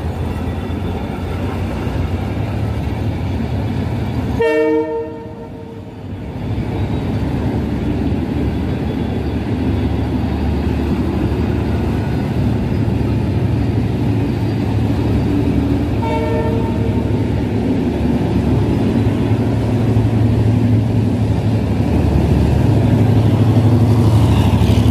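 Passenger train coaches rolling past with a steady low rumble. A train horn sounds briefly about four and a half seconds in, and again more faintly around sixteen seconds. The rumble grows louder near the end as a diesel locomotive comes in on the next track.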